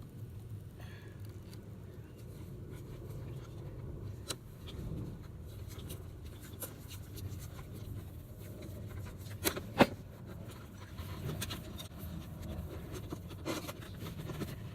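Electrical tape being pulled off the roll and wrapped around spliced wires: soft rasping and scraping. Two sharp clicks close together about nine and a half seconds in.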